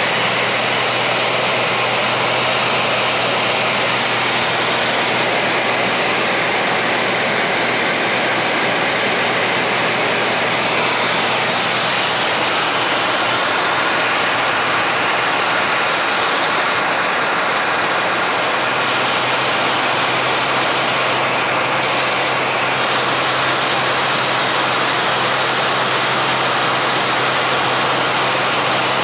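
Cabin noise of a single-engine high-wing light aircraft on landing approach: the piston engine and propeller drone steadily under a constant rush of airflow.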